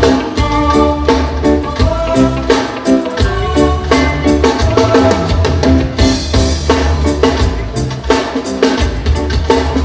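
Live reggae band playing an instrumental passage: drum kit with snare, rimshot and bass drum over a bass line and sustained chords, with a cymbal wash about six seconds in.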